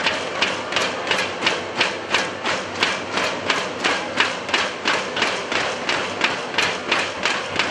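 Spectators beating inflatable balloon cheering sticks (thunder sticks) together in a steady, fast rhythm of sharp bangs, about three to four a second, over a general crowd din.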